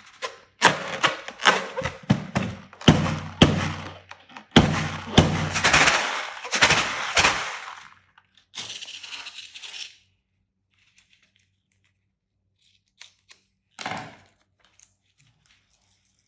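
Slime being squeezed and pulled by hand, giving bursts of sticky crackling and popping clicks for about eight seconds. A brief hiss follows, then a few scattered clicks.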